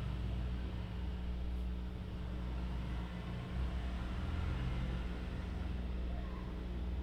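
Steady low mechanical hum with no sudden events.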